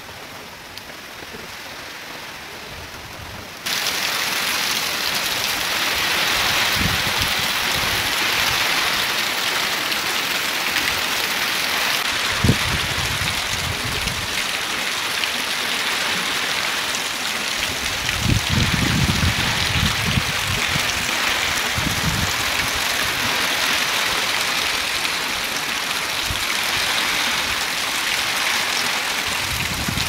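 Heavy tropical rain pouring in a steady, dense hiss, with low rumbling gusts of wind now and then. About four seconds in the downpour jumps suddenly louder.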